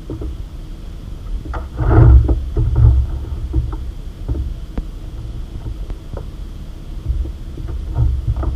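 Low thumps and rumble of a small fishing boat rocking on choppy water, with scattered clicks and knocks of fishing tackle being handled. The heaviest thumps come about two and three seconds in.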